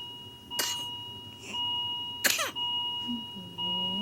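Young child with whooping cough (pertussis) in a coughing fit: harsh coughs about half a second and about two seconds in, then a long drawn-out sound from the child near the end as another cough begins. A steady high electronic tone runs underneath.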